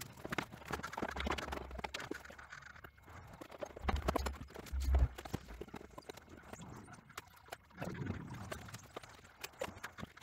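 Irregular clicks and knocks of wires and alligator-clip test leads being handled and clipped onto a tractor's dash wiring, with a few dull thumps near the middle.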